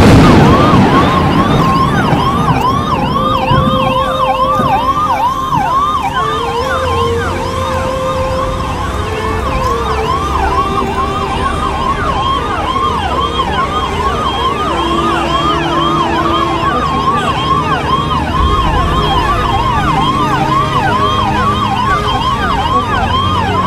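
Ambulance siren in a fast yelp: quick rising sweeps repeating about three times a second, over a low rumble.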